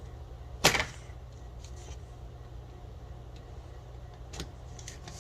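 Hard plastic Hot Wheels track pieces being fitted together: one sharp knock under a second in and a fainter click near the end, over a low steady hum.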